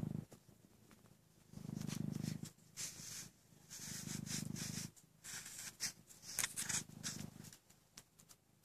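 Maine Coon cat purring in pulses every two to three seconds while suckling on a blanket, with a run of quick wet sucking clicks in the middle stretch.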